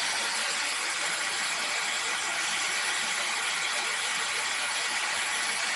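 Vacuum cleaner running steadily, an even rushing noise with no change in level.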